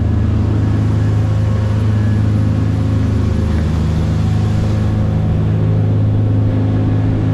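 A boat's engine running steadily at constant speed, a low, even drone.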